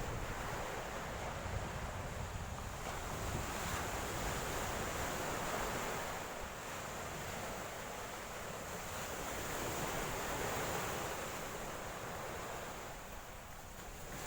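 Sea surf washing on a beach, rising and easing in slow surges every few seconds, with wind buffeting the microphone.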